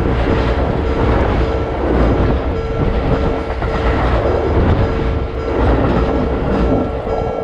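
Train passing through a Japanese level crossing, its wheels clattering rhythmically over the rail joints, while the crossing's electronic warning bell rings steadily over it.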